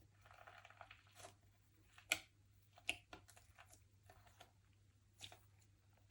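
Slime being worked by hand: faint sticky crackles and small clicking pops, with two sharper pops about two and three seconds in.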